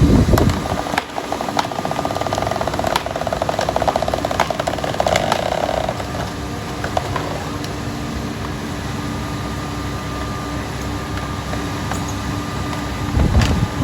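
Heavy diesel farm machinery running steadily, with a fast fine rattle from about one and a half to six seconds in and a few scattered clicks.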